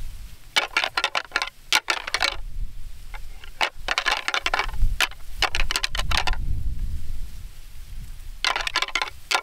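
A pair of deer antlers clashed and ground together in several bouts of rapid clicking and rattling: antler rattling that imitates two bucks sparring, to draw in a rutting buck.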